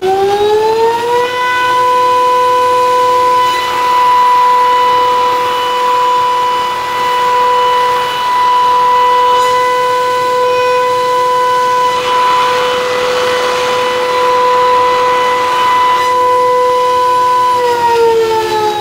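Spindle of the Lee Hyun multi wood machine spinning up over about a second to a steady high whine as its cutter surfaces a timber 1 mm per pass, with a rougher hiss of cutting over two stretches; near the end the whine winds down as the spindle slows.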